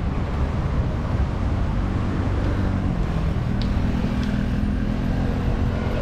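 Road traffic passing on a seafront street: a steady rumble of cars, with an engine hum building in the second half.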